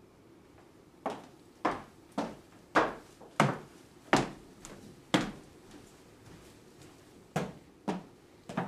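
High-heeled footsteps clicking on a hardwood floor, about two steps a second, pausing for about two seconds in the middle and resuming near the end.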